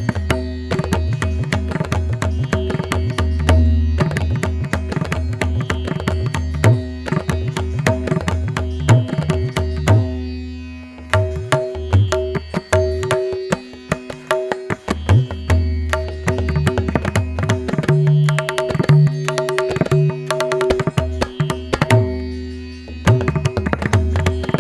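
Instrumental background music in an Indian classical style: fast hand-drum strokes over a steady held drone, with two short thinner passages partway through.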